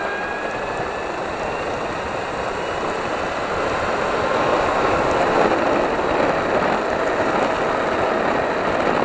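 Electric skateboard riding on asphalt: a steady rolling rumble of the wheels and road noise that grows a little louder as the board gathers speed, with a faint whine from the motor rising in pitch during the first few seconds.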